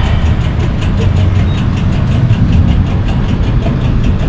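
Diesel fuel pump running as fuel is dispensed into a tank: a steady low rumble with a faint regular ticking about four times a second.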